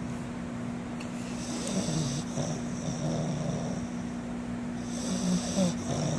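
Snoring during sleep: a series of slow, uneven snoring breaths, over a faint steady hum.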